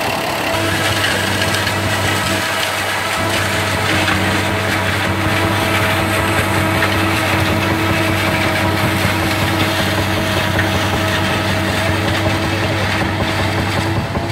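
Vintage tractor engines running steadily under load while a tractor-drawn forage harvester chops maize and blows it into a trailer: a continuous engine drone with several steady tones mixed with the hiss of the chopper.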